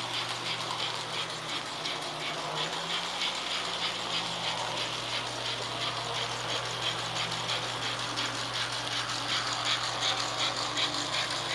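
American Flyer S-gauge model steam locomotive running on its track: rapid, even mechanical clicking over a steady low motor hum.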